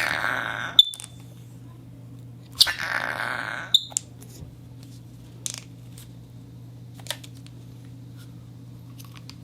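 Rubber squeaking and hissing as it slides, twice, each stroke about a second long and ending in a sharp pop; a few light clicks follow, over a steady low hum.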